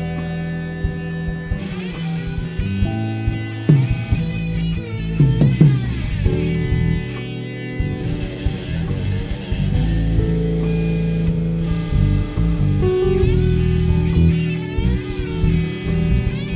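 Electric guitar solo on a Stratocaster-style guitar played lying flat, lap-steel fashion, with a slide: long sustained notes and several swooping pitch glides about four to six seconds in, over a steady bass line from the band.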